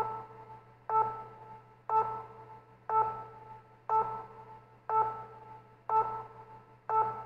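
An electronic chime-like beep repeating about once a second, eight times, each note starting sharply and fading away before the next.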